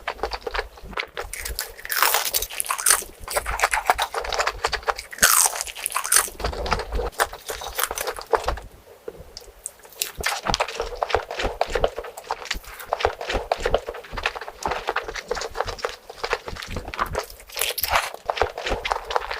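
A person biting and chewing crunchy food close to the microphone, with dense runs of crackly crunches and a short pause about nine seconds in.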